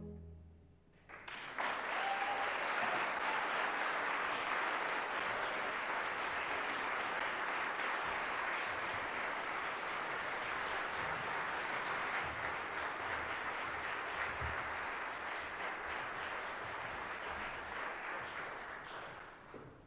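Audience applauding after an orchestral performance: the clapping breaks out about a second in, holds steady, and fades away near the end.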